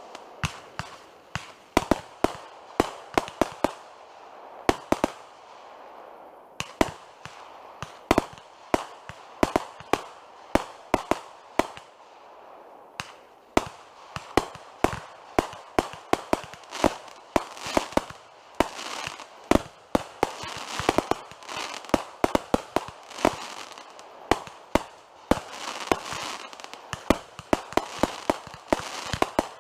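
Consumer fireworks going off in a rapid, irregular run of sharp bangs and pops, often several a second, over a steady crackle, with short lulls around five and twelve seconds in.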